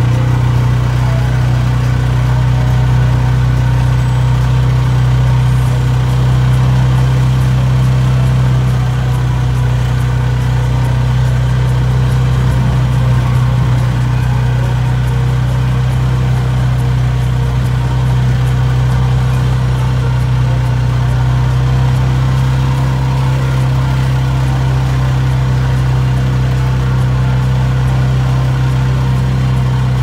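Arctic Cat's engine running steadily as the machine drives along, a constant low drone heard from the driver's seat.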